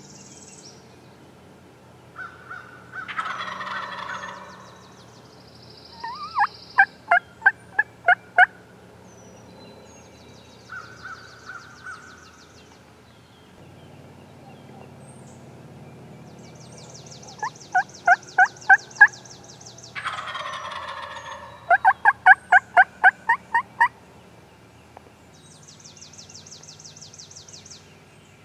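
Wild turkey gobbler gobbling twice, each gobble a rattling call of about a second and a half. Between and after the gobbles come runs of loud, sharp, evenly spaced turkey-call notes, about three a second, with small birds trilling faintly in the background.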